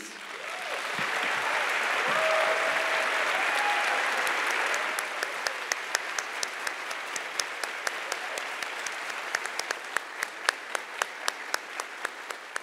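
Audience applauding, swelling over the first two seconds. From about five seconds in the clapping thins, and single sharp claps stand out at about three a second.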